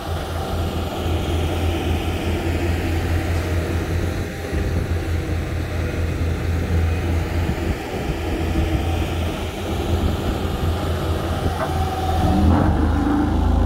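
Diesel engines of road rollers running steadily on an asphalt paving site, a low droning rumble. Near the end the sound gets louder as the tandem drum roller moves in close.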